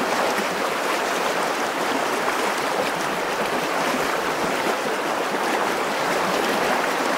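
Fast, shallow river rushing steadily over a stony riffle, with water splashing around the legs of someone wading in it.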